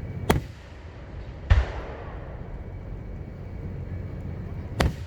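Aerial firework shells bursting: a sharp bang, then about a second later a louder, deeper boom that trails off in echo, and another sharp bang near the end, over a steady low rumble.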